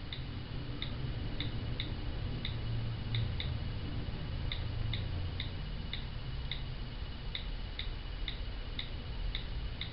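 iPhone on-screen keyboard key clicks as an email address is typed: a string of short, light clicks, two or three a second, with a brief pause near the middle.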